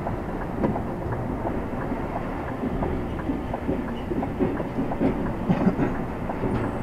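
Articulated lorry rolling at walking pace while turning, heard from the cab: diesel engine running under a low rumble, with many irregular rattles and knocks from the cab and trailer.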